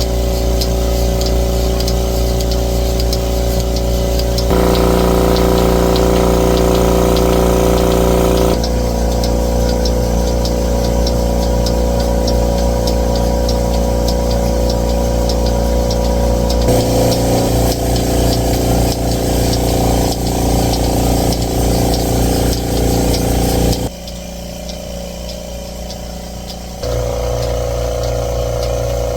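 Milking equipment running with a loud, steady machine hum and a constant low rumble. The sound shifts abruptly several times, as if cut between shots.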